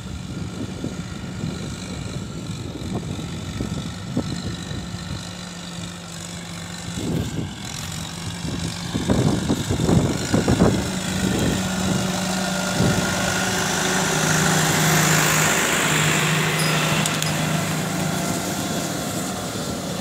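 Ford 7740 tractor's diesel engine running steadily under load as it pulls a three-disc plough through dry, hard soil, coming closer and passing by. Louder uneven bumps sound about halfway through, and a hiss rises as the tractor and plough pass close.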